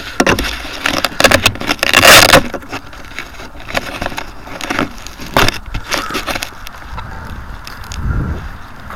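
A small drone in flight, heard through its own onboard camera: propeller and wind noise over the microphone with irregular knocks and crackles, loudest about two seconds in.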